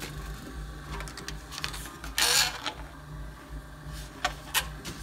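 Industrial shredder driven by a geared DC wheelchair motor, running with a steady low hum and scattered clicks as its cutters start to bite into a strip of HDPE milk-jug plastic. A louder burst of crunching noise comes about two seconds in.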